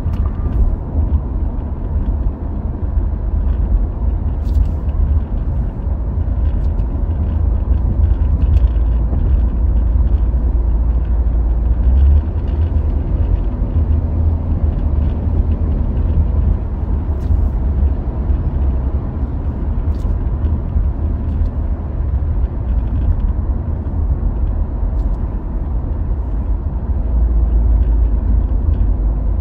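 Steady low rumble of a car driving at road speed, heard from inside the cabin, with a few faint clicks.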